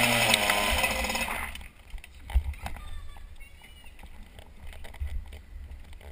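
KZ125 kart's 125 cc two-stroke engine running at low revs, then cut off about a second and a half in. After that only faint background and a few dull low knocks are left.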